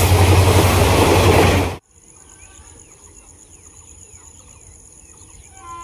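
Passenger train of ICF coaches running past at speed, loud, until the sound cuts off abruptly about two seconds in. After that there is quiet trackside ambience: a steady high insect drone with scattered bird chirps.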